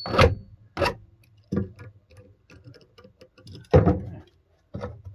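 Hand file scraping back and forth on the freshly cut end of a steel bolt, a run of short, irregular strokes deburring the sharp edges; the strongest stroke comes near the end.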